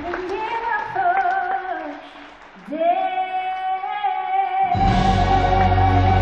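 A woman's solo voice sings a short phrase with vibrato almost unaccompanied, then holds one long high note. A symphony orchestra comes back in at full strength under the held note near the end.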